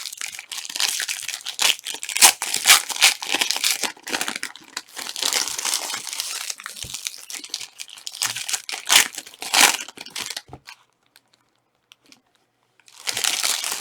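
Plastic-foil trading card pack wrappers crinkling and tearing as packs are opened and handled. The crackle stops for about two seconds near the end, then starts again.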